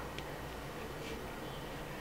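Two faint clicks of fingertips tapping smartphone touchscreens, over a steady low hum.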